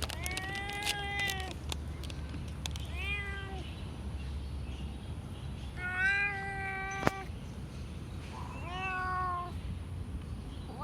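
A cat meowing repeatedly: four drawn-out meows a couple of seconds apart, each arching up and down in pitch. Light clicks run through the first few seconds, and there is one sharp click about seven seconds in.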